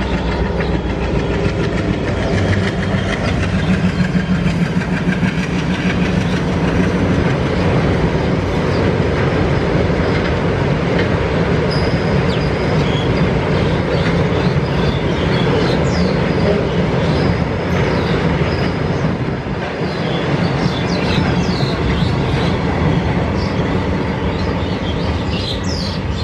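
A freight train of empty flatbed wagons hauled by a WDM-3A diesel-electric locomotive running past, its wheels clattering steadily over the rails.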